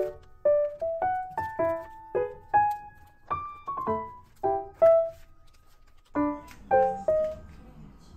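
Background piano music: a light melody of single notes and small chords played several notes a second.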